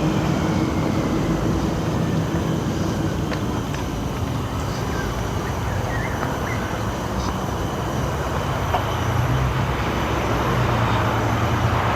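Steady road traffic noise, cars passing by.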